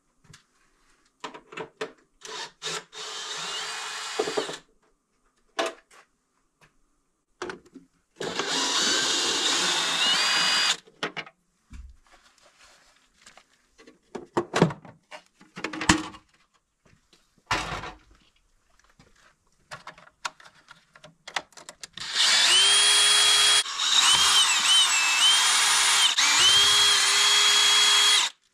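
DeWalt 18V XR cordless drill-driver running in three bursts, a short one, a second one, and a longer one near the end. The motor whine climbs and dips as the trigger is eased and squeezed, with clicks and knocks of handling in between. The bit is working through the back of a plastic breaker box, driving its fixing screws.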